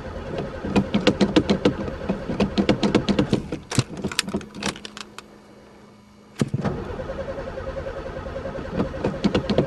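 A 1960 Pontiac's V8 being cranked by the starter in two long attempts with a short pause between, turning over with sharp irregular pops but never catching. The car has sat for three years, and the owner suspects chewed wires or broken fuel lines.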